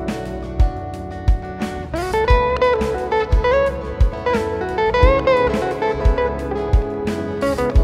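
Instrumental background music: a sliding melody over a steady low beat.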